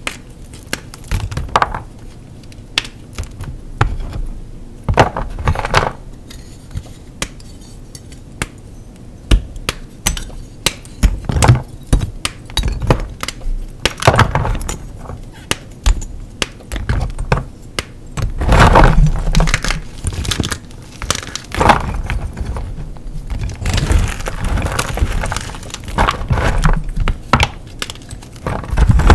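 Blocks of gym chalk being crushed and crumbled: an irregular run of crisp crunches and crackles, with a few louder crunches in the second half.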